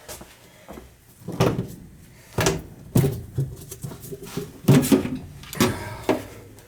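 Sheet-metal knocks and rattles, about six over a few seconds, some with a short ring after them, as the gas furnace's access panel is taken off to get at the flame sensor.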